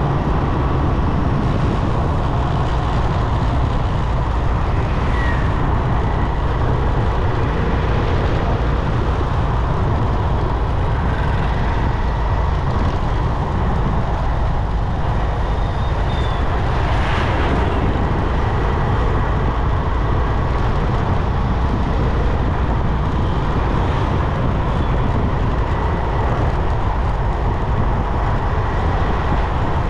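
Motorcycle riding along a highway: steady wind and engine noise with surrounding traffic, and a brief swell of noise just past halfway.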